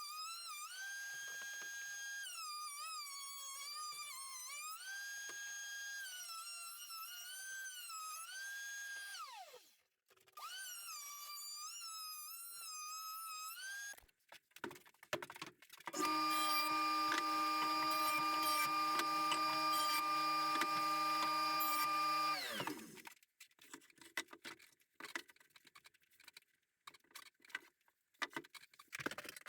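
A wavering, gliding musical tone for about the first fourteen seconds, then a few knocks. Next a power tool's motor runs steadily for about six seconds and winds down in pitch as it is switched off. Scattered knocks and clatter of wood follow.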